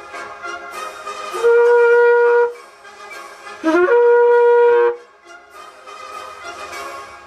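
Two loud, steady horn blasts of about a second each, the second starting with a quick upward scoop, over background music.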